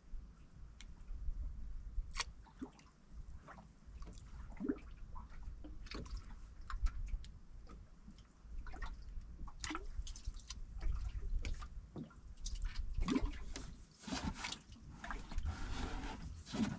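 Sea water sloshing and slapping against a small fishing boat's hull, with scattered irregular knocks and clicks over an uneven low rumble.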